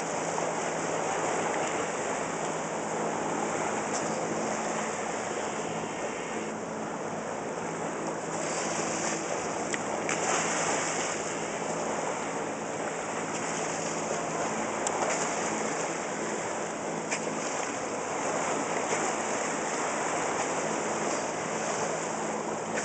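Steady rush of sea water churning along a moving motor-sailboat's hull, with a faint steady low hum from the boat's engine underneath.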